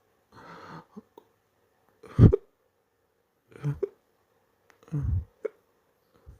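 Hiccups from a person in the middle of a hiccup fit: three sharp hiccups about a second and a half apart, the first and loudest about two seconds in, each a sudden catch of breath with a short voiced gulp. A soft breath comes just before them.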